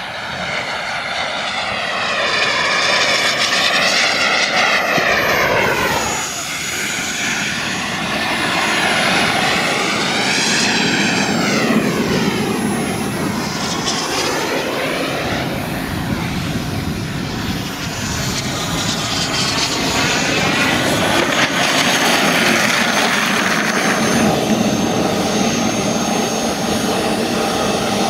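Gas turbine engine of a radio-controlled F-16 model jet flying fast passes: a loud, steady jet rush and whine that sweeps up and down in pitch as the jet comes past, several times over, with a brief dip about six seconds in.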